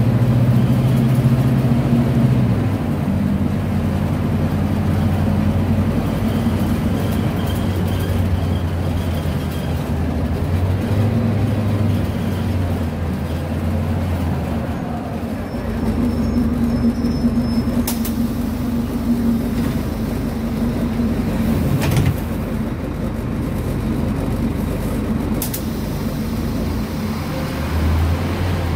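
Scania DC09 five-cylinder inline diesel of a Scania K250UB city bus, heard inside the cabin near the rear, running steadily as the bus drives. The engine note steps down about two seconds in, changes again around the middle and near the end, and there are three sharp knocks in the second half.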